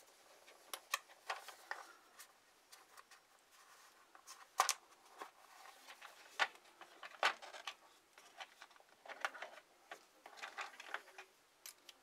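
Scattered light clicks, taps and rustles of hands and small hand tools working at a metal ceiling light fixture, with sharper clicks about four and a half and seven seconds in.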